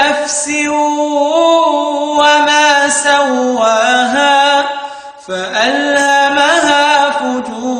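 A male reciter chanting the Quran in melodic tajweed style, in long held, ornamented phrases. He takes a short breath pause about five seconds in.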